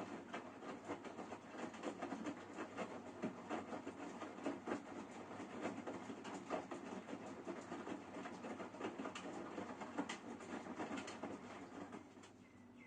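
Washing machine running: a continuous clattering, rattling churn that drops away about a second before the end.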